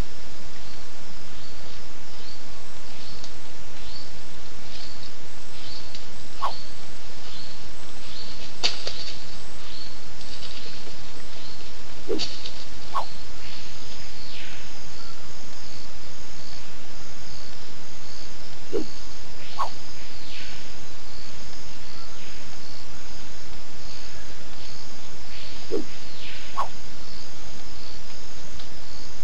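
Tropical forest ambience: steady hiss under rhythmic insect chirping, with a high, evenly pulsed insect trill setting in about halfway through. A short falling call, usually two notes close together, repeats roughly every six seconds.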